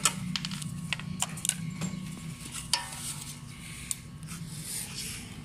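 Light metallic clicks and clinks of a pedestal fan's metal blade hub and a small steel tool being handled, a dozen or so separate taps, over a steady low hum.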